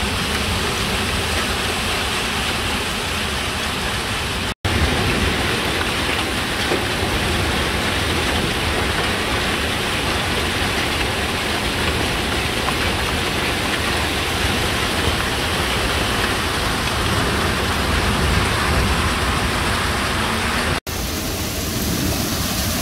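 Heavy rain pouring down in a steady, even hiss during a cloudburst, broken twice by split-second dropouts.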